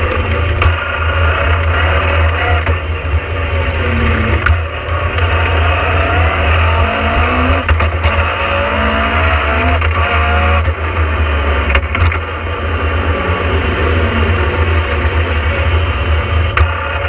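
Inside the cabin of a Talbot Sunbeam rally car, its Vauxhall 2.0-litre engine running hard, pitch rising and falling as it accelerates and shifts up from first to second through the sequential gearbox. Heavy road and tyre noise drones underneath, with scattered sharp knocks and rattles.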